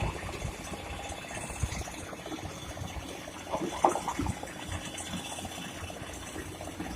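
River water rushing and gushing, with a few short knocks a little past the middle.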